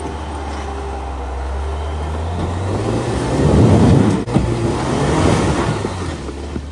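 Jeep Wrangler Rubicon engine pulling steadily under load up a steep dirt ledge, then revving up about two and a half seconds in as the front tyres spin and spray dirt. The revving and spinning are loudest a little before the middle and ease off near the end.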